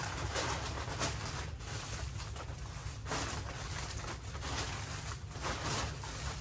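Plastic mailer bags crinkling and rustling as packages are handled and stuffed into a large clear plastic bag, with a steady low hum underneath.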